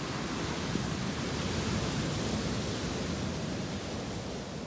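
Ocean surf: a steady rush of breaking waves that swells and then eases off.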